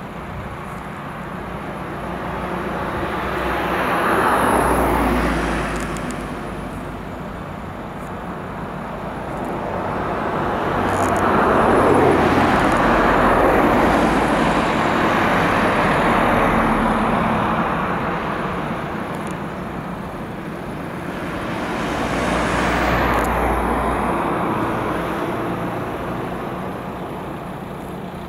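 Road vehicles passing close by, their tyre and engine noise swelling and fading three times: once about four seconds in, a longer pass through the middle, and again near the end.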